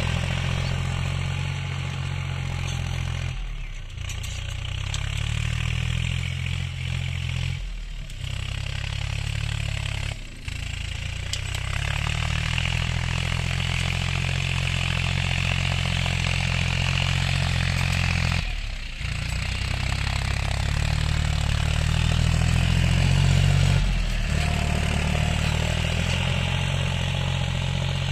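John Deere 5055E tractor's three-cylinder diesel engine running steadily under load as it pulls a tine cultivator through dry soil. The sound breaks off briefly several times, with slight changes in engine tone between stretches.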